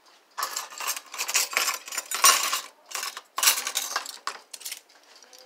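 Dishes and metal utensils clattering and clinking as they are handled at a kitchen counter, in several bursts over about four seconds.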